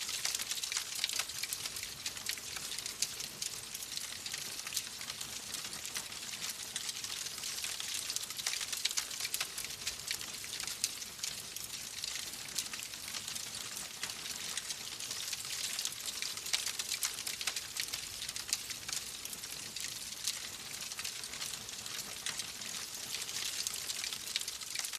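Wood fire crackling in a fireplace: a steady hiss with frequent small, sharp pops.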